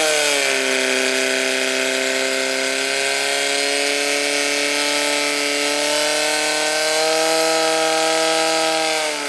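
Portable fire pump's small engine running at high, steady revs while it pumps water into the attack hoses, its note dropping off at the very end.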